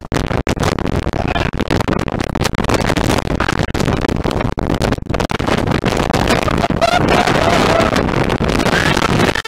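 Strong storm wind buffeting the camera microphone, a loud, continuous rushing noise broken by many brief dropouts.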